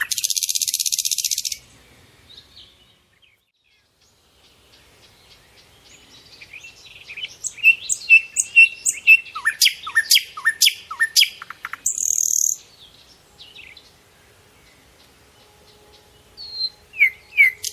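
Small songbirds singing: a fast, high buzzy trill at the start, then after a pause a run of quick repeated chirps and down-slurred whistled notes, a short high buzz, and a few more chirps near the end.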